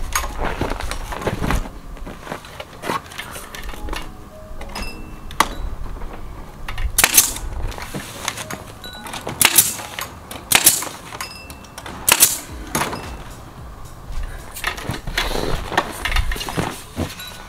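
Pneumatic nail gun firing several sharp shots into wooden strips that hold down plastic sheeting, with background music.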